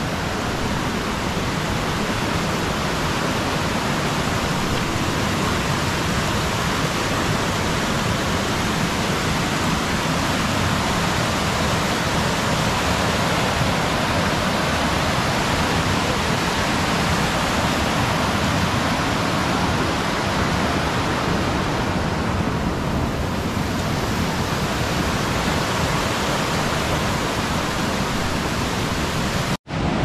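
Steady rush of a fast mountain stream tumbling over rocks as white water. It cuts out for a moment just before the end.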